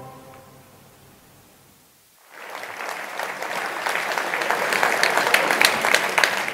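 The last notes of a brass piece fade away, and after a short silence an audience breaks into applause about two seconds in, building and carrying on.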